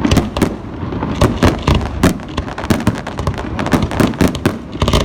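Aerial fireworks going off: a rapid, irregular series of sharp bangs and crackles, several a second.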